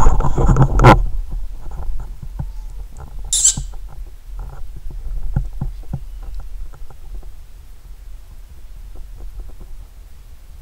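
Loud handling noise for about the first second as the camera is picked up and swung round, then a tomcat scampering about on a cat tree: scattered light taps, knocks and patter of its paws, with one short scratchy hiss a few seconds in.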